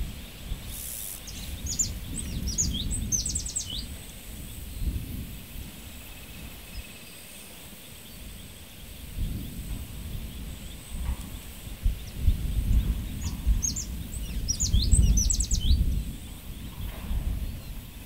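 Countryside ambience: birds giving two bursts of quick, high chirps, one about a second in and the other about thirteen seconds in, over a low rumble that rises and falls.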